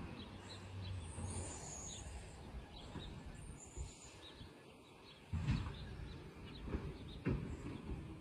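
A truck engine runs low in the distance and fades within the first second or so, while small birds chirp. A few dull thumps come in the second half, the loudest about halfway through.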